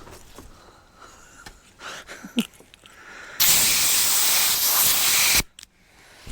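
Compressed air hissing from an air hose used to inflate a backhoe tire: one loud burst of about two seconds, starting and stopping abruptly, after a few seconds of light handling clicks.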